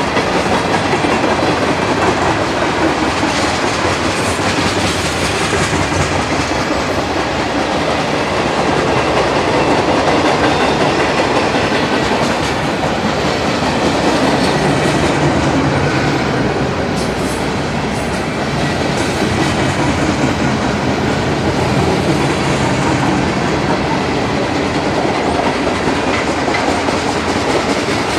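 Freight train cars rolling past, steady and loud, with steel wheels clacking over the rail joints.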